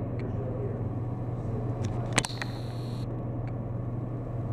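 Steady low rumble of approaching diesel freight locomotives. A sharp click comes about two seconds in, followed by a brief faint high whine.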